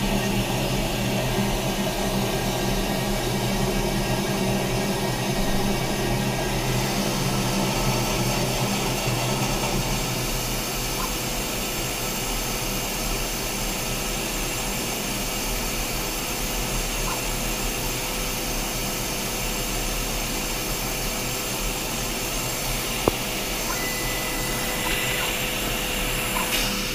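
Disco DAD 321 dicing saw running steadily with its blade spindle spinning during the blade measurement setup: an even machine whir and hum. A single sharp click about 23 seconds in, followed by a brief faint beep.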